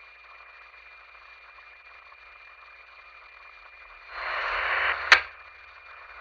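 Police two-way radio between transmissions: faint channel hiss with a thin steady tone, then about four seconds in a second-long burst of static cut off by a sharp squelch click, a transmitter keyed up with no voice.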